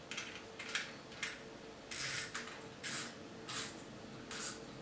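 Front drag knob of a Ryobi Excia MX 300 spinning reel being turned by hand, giving about seven short ratcheting bursts at irregular intervals, one longer near the middle.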